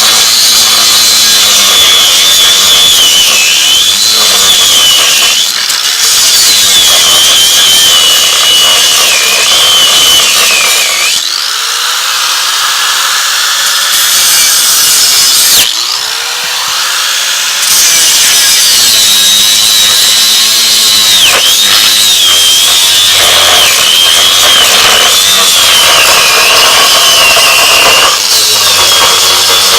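Kawasaki 4.5-inch angle grinder cutting through a steel bolt, loud and continuous. Its whine wavers and sags as the disc bites the metal. Twice, about a third and about halfway through, it eases off and climbs back in pitch.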